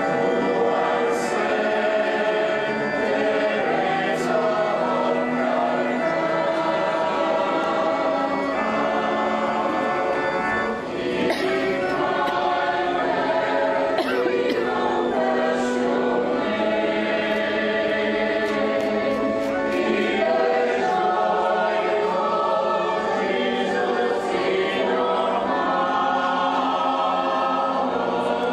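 A choir singing in long, sustained phrases, with a brief break about eleven seconds in.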